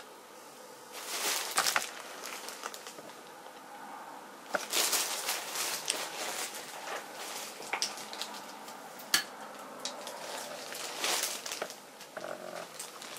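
Handling noise: irregular rustling and scraping with scattered sharp clicks, starting about a second in, as a hand-held sheet-metal elevator lantern frame and the camera are moved about.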